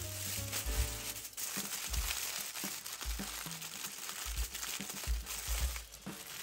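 Aluminium foil crinkling and rustling as hands fold and crimp it closed around a food parcel, over soft background music.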